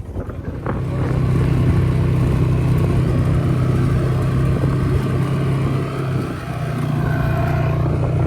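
ATV engine running under steady throttle, easing off briefly a little after six seconds and then picking up again.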